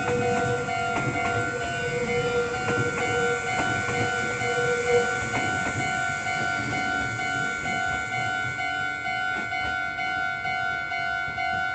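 Japanese level-crossing alarm ringing steadily as a train runs past, with the rumble of the train and irregular clacks of its wheels over the rail joints.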